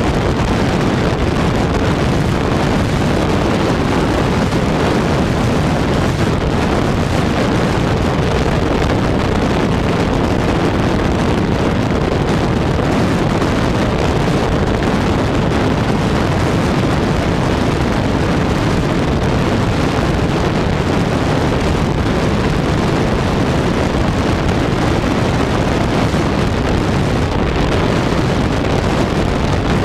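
Steady rush of wind over the microphone mixed with the drone of a radio-controlled plane's electric motor and propeller at high speed, recorded onboard, with a faint steady tone under the noise.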